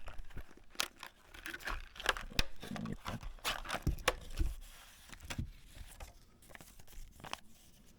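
Rustling, crinkling and clicking of a product package being opened and its contents handled, a run of short sharp sounds that thins out over the last few seconds.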